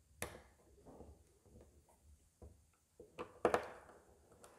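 Small clicks and scrapes of a screwdriver and wire at the plastic screw terminal block of an LED driver as the line wire is fastened: one sharp click just after the start, light scraping, then a quick cluster of clicks a little past three seconds in.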